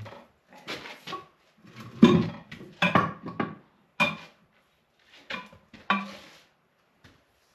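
A run of separate metallic clanks and clinks, several ringing briefly, from metal tools and parts being handled and set down.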